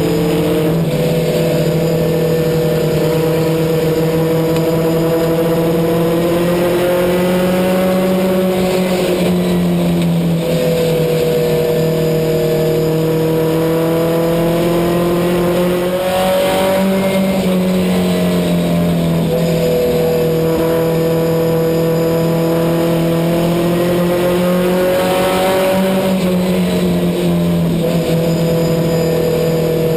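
Race car engine heard from inside the car's cockpit at racing speed. Its pitch climbs for several seconds, then drops back, repeating about every eight or nine seconds as the car accelerates down each straight and lifts for the turns.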